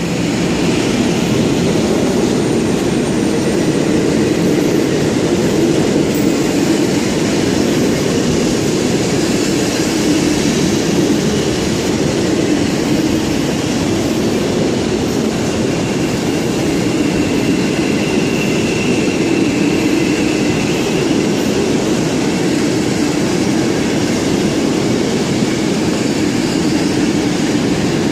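Intercity passenger coaches behind an EU07 electric locomotive rolling into a station on the near track: a loud, steady rumble of wheels on rails. A faint high whine of wheels or brakes comes in for a few seconds past the middle.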